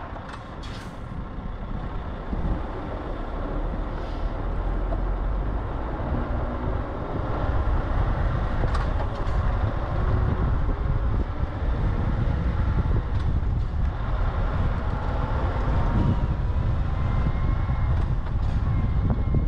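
Scania R580 truck's V8 diesel engine running as the truck drives, with a few scattered clicks; it grows louder over the first several seconds, then holds steady.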